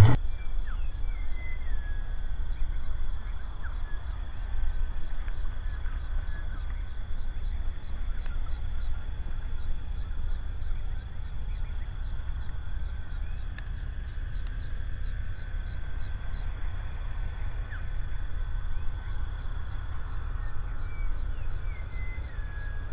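Outdoor marsh ambience: a steady, high-pitched insect trill pulsing several times a second, a few short bird calls about a second in and again near the end, over a low rumble.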